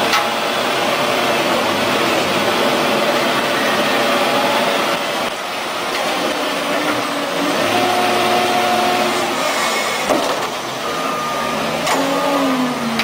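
Bulldozer engine running steadily at work, its pitch shifting now and then.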